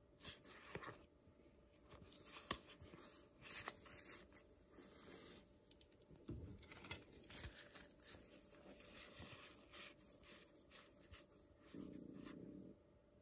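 Faint rustling and light irregular clicks of Pokémon trading cards being fanned, slid and sorted in gloved hands.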